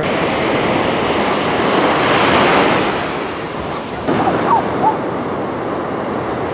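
Ocean surf breaking and washing up a sandy beach, a steady rushing that swells to its loudest a couple of seconds in and then eases.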